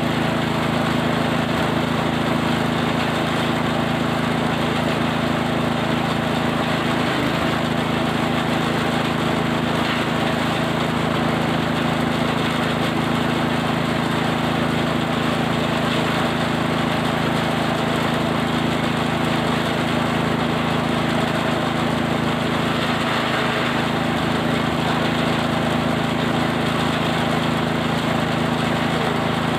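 Forage chopper machine running steadily, chopping cattle feed, with a constant engine-like hum.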